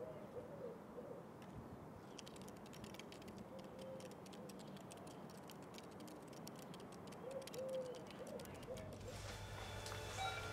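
Faint outdoor ambience with a dove cooing softly: a few arching coos just after the start and again near the end. Between the two sets of coos runs a stretch of faint, rapid clicking. Near the end the sound changes to a steadier indoor hum with short high beeps.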